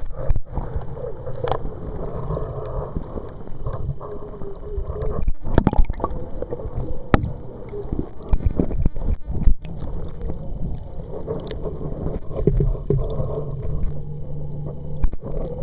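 Kayak paddling: water splashing and gurgling around the paddle and hull, with a few sharp knocks scattered through.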